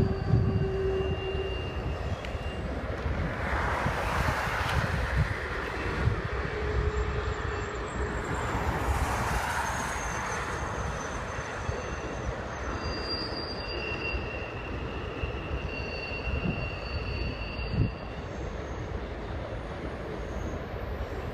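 Freight train cars rolling past with a steady rumble, while thin, high-pitched wheel squeals come and go.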